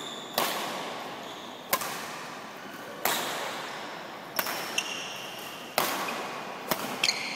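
Badminton rackets striking a shuttlecock in a rally: sharp hits about every one to one and a half seconds, echoing in the hall. High squeaks, typical of shoes on the court floor, come in the second half and near the end.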